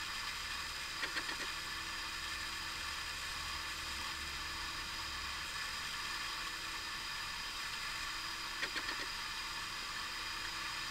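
Steady background hiss of room tone and recording noise, with a faint low hum through the first half. Two faint brief sounds come about a second in and about two seconds before the end.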